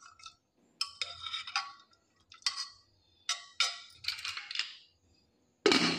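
Steel ladle clinking and scraping against the inside of a pressure cooker while it stirs boiled kidney beans in their cooking water: a run of sharp metallic clinks, the loudest near the end.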